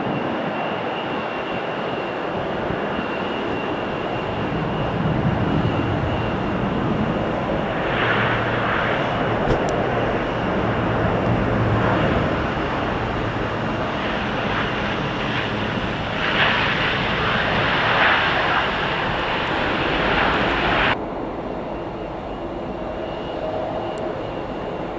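Airliner jet engines running loud as an aircraft passes, mixed with strong gusting wind. There is a steady whine in the first few seconds, louder swells in the middle, and the noise drops suddenly near the end.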